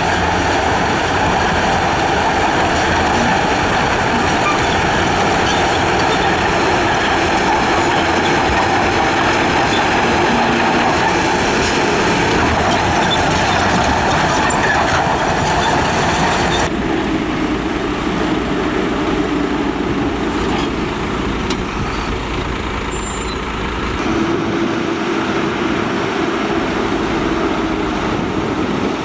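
Heavy diesel construction machinery running steadily. A little past halfway the sound changes abruptly to a different, steadier engine note with less high-pitched noise.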